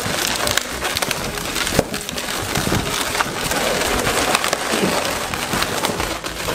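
Latex 260 modelling balloons rubbing and squeaking against each other under the fingers as a white balloon is twisted and tied onto a blue balloon frame, a steady crackly, scrunching rub with many small squeaks.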